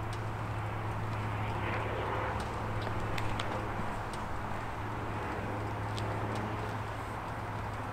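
Cessna 172B's six-cylinder Continental O-300 engine running steadily at low power on the ground, warming up with its two newly fitted cylinders, with a few light clicks over it.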